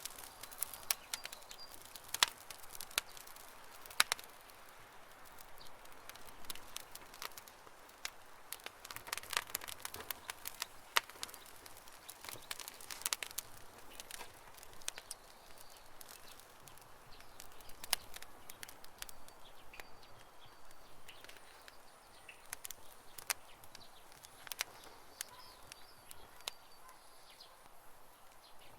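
Wood campfire crackling, with irregular sharp pops and snaps, and faint bird chirps in the background.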